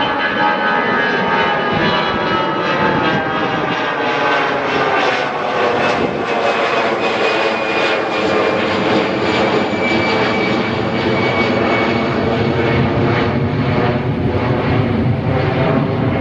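Jet airliner's engines at take-off power: a loud, continuous whine with several tones that slide slowly down in pitch as the aircraft passes.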